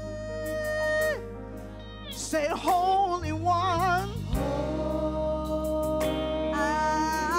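Live gospel singing: a woman's solo voice holding long notes, one of them with a wide vibrato a couple of seconds in, over a steady instrumental backing.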